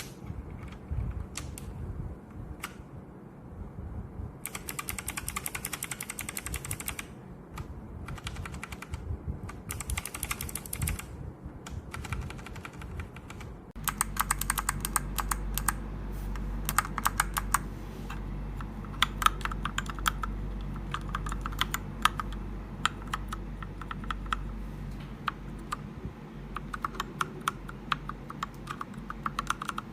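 Mechanical keyboard fitted with Kailh BOX Thick Click clicky switches being typed on: scattered keystrokes and short quick runs at first, then fast continuous typing from about halfway, each press a sharp click. A steady low hum sits under the second half.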